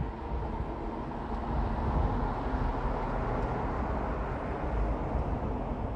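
Low rumble of passing road traffic, swelling a little in the middle and easing near the end.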